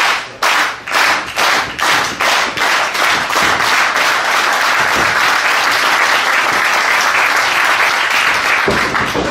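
Crowd clapping in unison, the beat quickening over the first few seconds until it runs together into steady applause.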